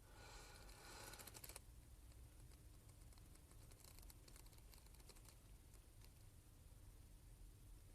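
Near silence with faint clicking: a short rustle in the first second and a half, then scattered light clicks.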